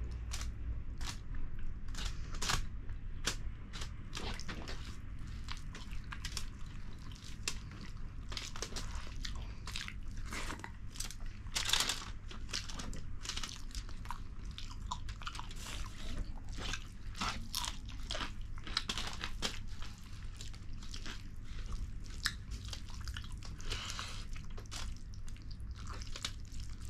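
People chewing and eating fish curry with rice close to the microphone: many short, irregular mouth clicks over a steady low hum.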